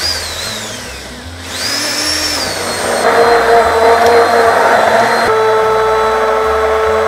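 Commercial immersion (stick) blender running in a bowl of pastry cream: a brief falling whine at the start, then the motor spins up with a high whine about a second and a half in and runs steadily, the blade churning the cream, until it stops right at the end. The cream is being blended smooth and thin.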